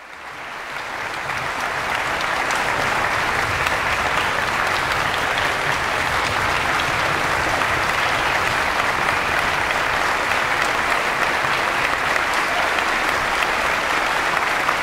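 Theatre audience applauding steadily, the clapping fading in over the first couple of seconds.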